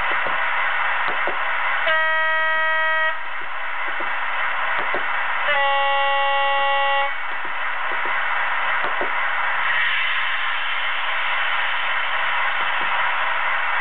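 Sound decoder of a Hornby class 56 model diesel locomotive sounding its two-tone horn through the model's small speaker: a higher note for about a second, then after a short gap a lower note for about a second and a half, over a steady background noise.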